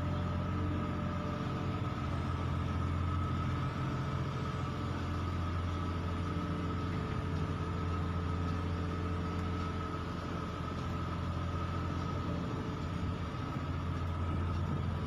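A large engine idling steadily, a constant low hum with a faint steady higher whine above it.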